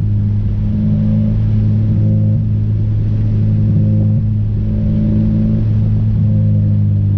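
Honda Civic with an Invidia exhaust and aftermarket downpipe, its engine and exhaust droning steadily at an even speed, the note holding nearly constant pitch with slight rises and dips.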